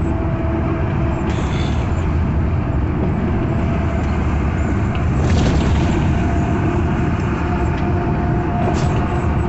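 Truck driving at highway speed, heard from inside the cab: a steady engine drone over loud road rumble, with a few brief knocks.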